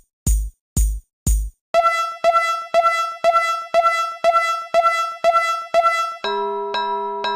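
Synthesized railway crossing alarm sounds, each repeating about twice a second. First comes a low thump with a click; from about two seconds in there is a higher electronic ding, and near the end it changes to a lower, fuller chime.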